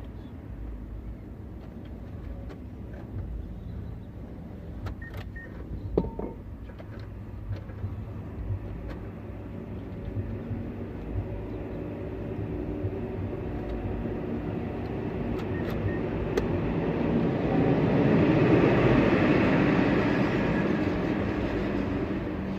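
Steady low vehicle rumble with a few sharp clicks about five to six seconds in, then a rushing vehicle noise that swells over several seconds and fades near the end, as of a vehicle passing.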